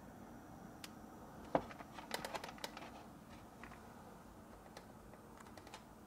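Plastic window-kit panel of a portable air conditioner being handled and seated in a sliding-window frame: a faint knock about one and a half seconds in, then a quick run of plastic clicks, and a few light ticks later on.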